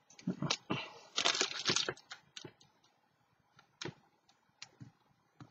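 Small clicks, taps and a short rustle of craft supplies being handled on a tabletop. The clicks come quickly in the first two seconds, then thin out to a few scattered taps.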